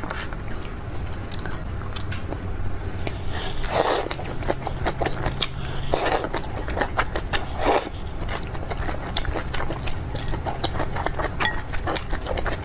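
Close-miked eating: bites and chewing with many small wet mouth clicks, and three louder bites near the middle.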